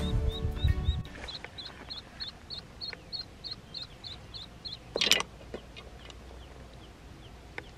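Background music ending about a second in, then a young waterfowl chick peeping over and over, about three high peeps a second, growing fainter after a few seconds. A short, louder burst of noise comes about five seconds in.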